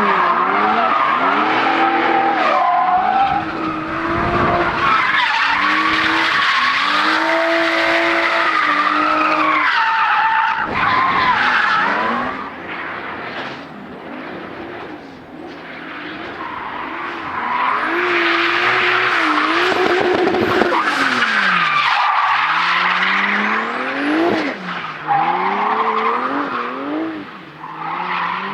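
Drift cars sliding with engines revving up and down and tyres squealing. The sound drops away for a few seconds about halfway through, then a car comes through loud again.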